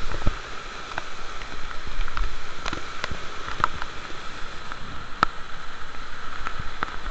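River water rushing and splashing over rocks at a small cascade, recorded close up, with many sharp ticks and taps of water drops and handling on the camera.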